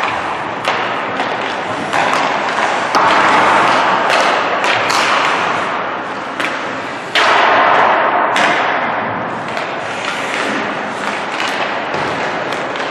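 Ice hockey pucks being shot and thudding against the boards, net and goalie's pads, several sharp hits, each followed by a long echo in the rink. The loudest come about three seconds and seven seconds in.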